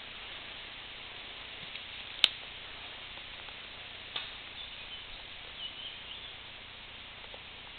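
Steady outdoor hiss broken by one sharp crack about two seconds in, a fainter click about four seconds in, and a few faint high chirps a little later.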